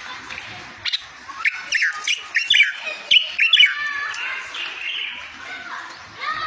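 Songbird singing a fast run of sharp chirps and quick downward-sweeping notes, a tutor song played to teach goldfinches and canaries to sing.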